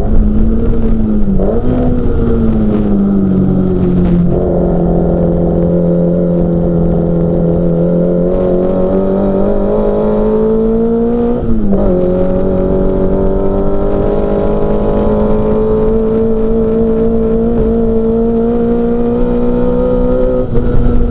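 Mini Cooper S four-cylinder race engine running hard at high revs under racing load. Its pitch climbs slowly, drops sharply about eleven seconds in at a gear change, then climbs again.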